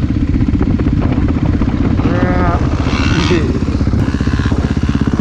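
Dirt bike engine running steadily with a dense, fast firing rhythm, heard from the rider's own helmet camera. A brief tone rises and falls about two seconds in.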